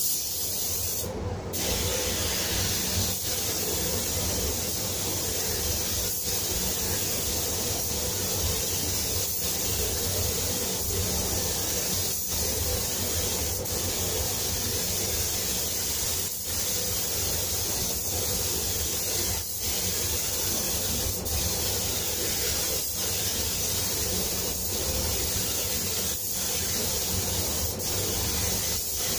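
Compressed-air gravity-feed spray gun hissing steadily as it sprays paint onto a car body, with brief breaks every couple of seconds, over a steady low hum.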